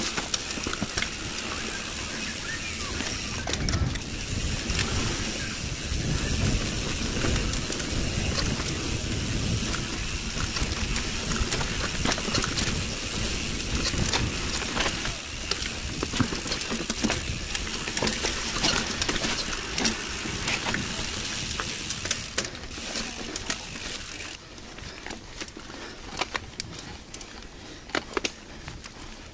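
Mountain bike riding fast down a dirt trail: tyre noise and wind rush on the mic, with the chain and bike rattling and clicking over bumps. About twenty-four seconds in it gets quieter, leaving scattered sharp clicks and rattles.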